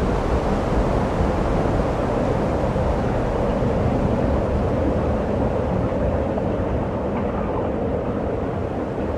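Steady low rumble of wind buffeting the microphone, an even noise with no distinct events.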